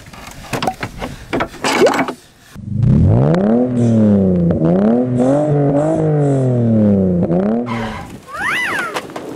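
Clicks and knocks as the trailer's drawbar is hitched to the toy ride-on tractor. Then an engine-revving sound effect rises and falls in pitch several times for the battery-powered ride-on loader tractor driving off. Near the end there is a short rising-and-falling whistle.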